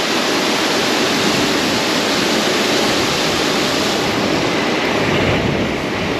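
Steady rush of water pouring down a 77-foot waterfall into its pool.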